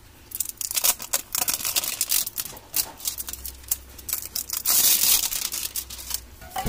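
Clear plastic wrap on an aerosol can crinkling and tearing as it is peeled off by hand, with irregular clicks and crackles. There is a louder burst of crinkling about five seconds in.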